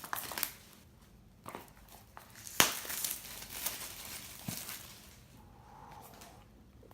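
Plastic wrapping crinkling and tearing as it is peeled off a product box, with a sharp snap about two and a half seconds in.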